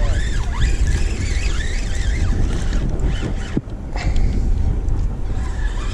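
Wind buffeting the microphone in a steady low rumble, with thin high wavering whistles over it in the first two seconds.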